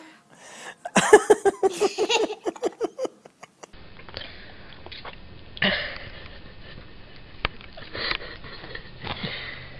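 A toddler's rapid pulsing vocal outburst, about five short cries a second for a couple of seconds, in reaction to an extremely sour Warheads candy. Then a different child sniffs and makes a few short strained noises over a low steady hum.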